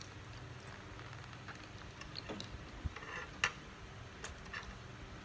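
A metal fork clicking and scraping against a plastic takeaway tray as it cuts into sauced siomay: a few irregular, light clicks, more of them in the second half, over a faint steady hum.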